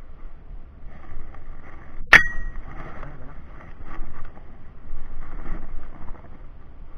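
A single sharp metallic clink with a short ringing tone about two seconds in, over a faint steady background hiss.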